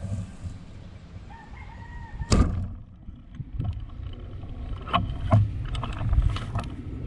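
A rooster crows briefly. About two and a half seconds in there is one sharp crack, a crossbow shot at a fish. After it come several lighter clicks and knocks from handling the crossbow and its line reel.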